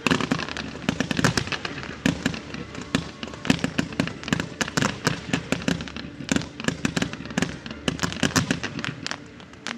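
Fireworks going off in a rapid, continuous barrage of sharp bangs and crackles, many in quick succession.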